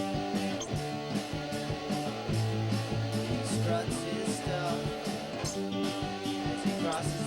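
Instrumental passage of a rock song: guitar with bass over a steady drum beat.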